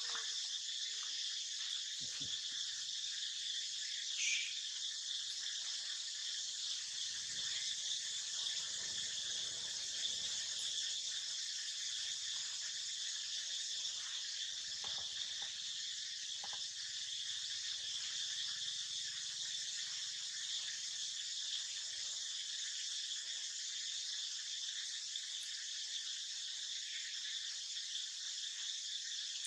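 Steady, even, high-pitched drone of insects, with one brief sharper sound about four seconds in.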